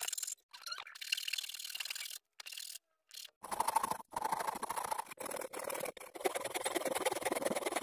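Steel hand file rasping across bare wood in repeated strokes with short pauses, shaping the outside of a carved wooden kuksa cup.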